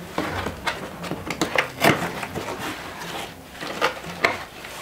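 Cardboard shipping box being pulled apart and handled: an irregular run of rustles, scrapes and sharp knocks, the loudest a little under two seconds in.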